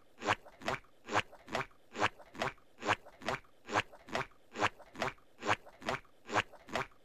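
Crunching chewing sound, repeated in an even beat of about two crunches a second.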